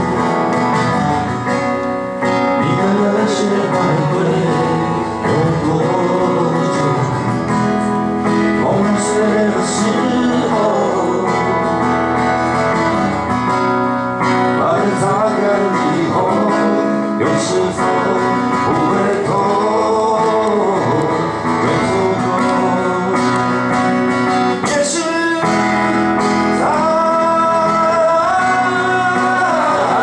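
Live acoustic guitar strumming accompanying two men singing a Chinese-language pop song, with a long held sung note near the end.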